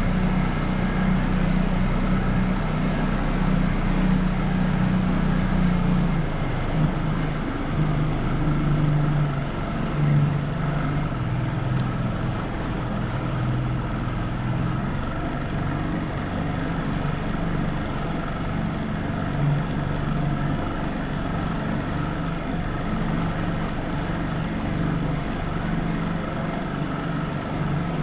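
Motorboat engine running steadily, its pitch shifting slightly about six and ten seconds in.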